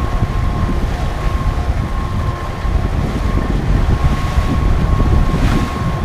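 Wind buffeting the microphone on a small boat under way at trolling speed, with the boat's motor giving a steady hum and water rushing past.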